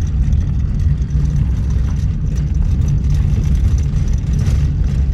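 A car's steady low rumble heard from inside the cabin as it drives on a gravel road: engine and tyres on the loose unpaved surface.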